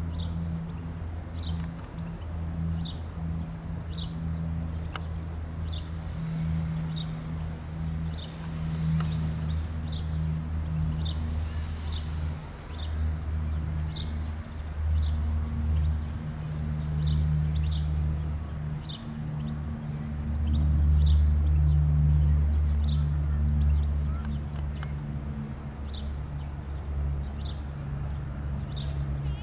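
Low drone of a Lockheed C-130H Hercules's four turboprop engines, swelling and fading, loudest about two-thirds of the way through. A bird repeats a short high chirp about once a second.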